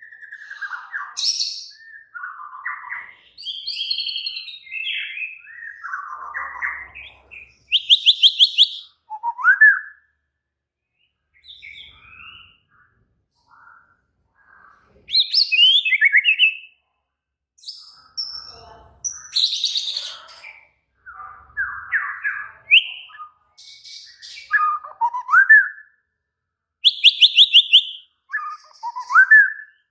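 White-rumped shama (murai batu) singing an agitated fighting song: loud, varied phrases of whistles, sliding notes and fast rattling trills, broken by short pauses.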